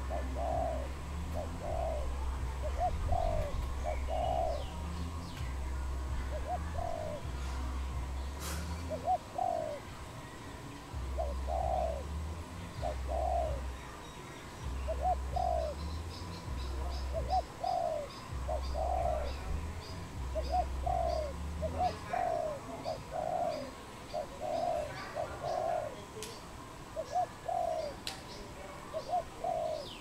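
Spotted dove cooing over and over, in short phrases of two or three soft, low coos. A faster series of high chirps comes from another small bird in the middle, and a low rumble underneath stops about two-thirds of the way through.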